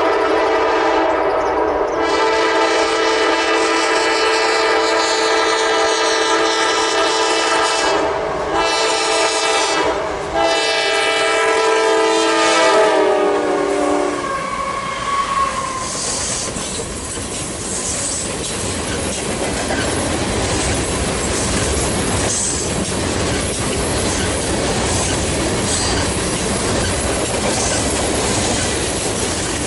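Diesel locomotive horn blowing a long chord with a few short breaks, its pitch sliding down as the lead locomotive passes about 14 seconds in. Then come the rolling noise and wheel clatter of a loaded ethanol tank-car train going by at speed.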